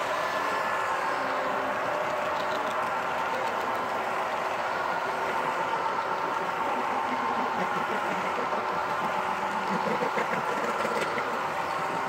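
HO scale model intermodal train of double-stack container well cars rolling past on the track: a steady rolling noise of small metal wheels on rail, with a few light clicks near the end.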